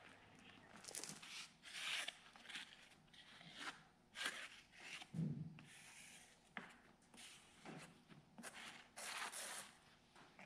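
Faint short scrapes and rubs of a pencil and hand working across a sheet of plywood while it is being marked out, with a dull low knock about five seconds in.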